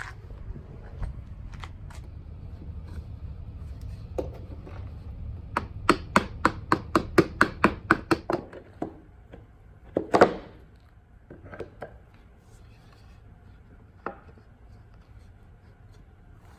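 Rapid hammering on wood: a quick even run of about a dozen sharp blows, four or five a second, then one heavier blow and a few scattered lighter knocks.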